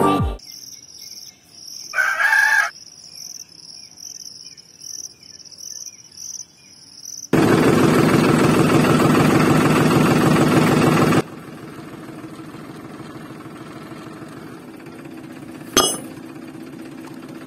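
Insects chirping in an even rhythm, with one short louder call about two seconds in. Then a small motor starts running loud with a fast rattle for about four seconds and drops to a quieter steady hum, with one sharp click near the end.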